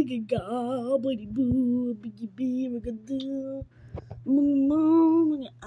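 A high voice singing a wordless tune in short held notes, ending on a longer held note near the end.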